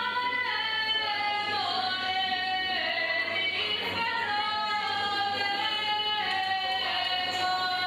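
A woman singing a slow traditional Serbian folk song solo, holding long notes that slide down from one pitch to the next.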